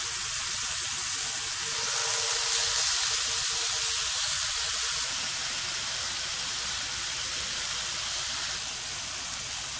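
Marinated chicken thighs sizzling steadily on a hot nonstick grill pan over medium heat, a little louder between about two and five seconds in.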